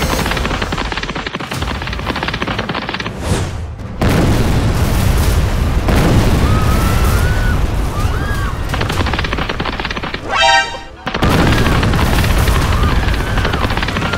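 Cartoon action soundtrack: dense booming and crackling noise mixed with music. Short squeaky pitch wiggles come in the middle, and a brief honking cry sounds just past ten seconds.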